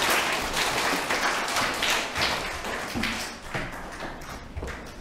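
Audience applauding, dying away about three seconds in, then scattered footsteps and taps of children walking off across the hall floor.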